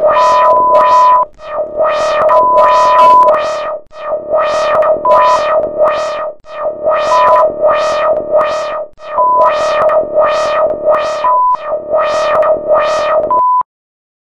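Synthesizer music: a quick run of plucked keyboard notes, about two a second, over a steady held drone. A pure high beep tone switches on and off several times, long at first and then in short blips, and the music cuts off abruptly near the end.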